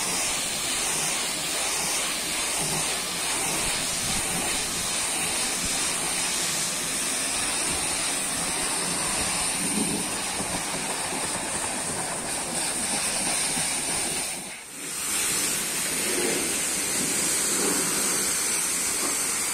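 Pressure-washer jet spraying water against the side of a truck: a steady hiss of the high-pressure stream with water splashing off the metal, broken once by a short dip about three-quarters of the way through.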